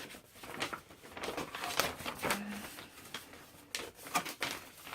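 Irregular rustling, crinkling and light taps of paper and packaging being handled.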